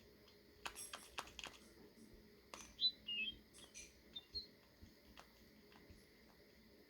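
Samsung Galaxy Buds giving out an irregular run of faint sharp clicks with a few short high chirps about three seconds in: the weird noise the earbuds make when their charging case has run out of battery.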